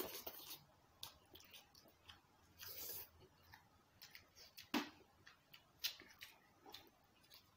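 Faint close-up eating sounds: spaghetti noodles being slurped and chewed, with scattered small clicks and a few short hissy slurps.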